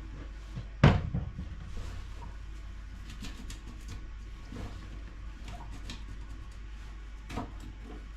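One hard knock about a second in, then scattered light taps and clicks as toilet cistern and flush-valve parts are handled, over a steady low hum.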